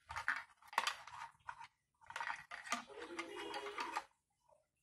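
Small hard plastic toy parts clicking and scraping against each other as a tiny guitar accessory is worked onto a vinyl figure seated in a toy buggy. Two bouts of quick clicks and rubbing, the second longer.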